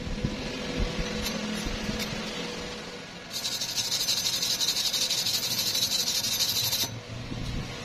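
A few light knocks on the steel. Then, about three seconds in, a steel wire hand brush scrubs back and forth over a fresh stick weld on steel pipe: a harsh, scratchy rasp of rapid strokes that runs for about three and a half seconds and stops abruptly.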